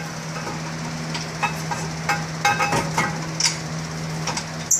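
Irregular metallic clicks and knocks of a wrench and bolts being handled as brake caliper bracket bolts are put back in, over a steady background hum. The loudest knock comes near the end.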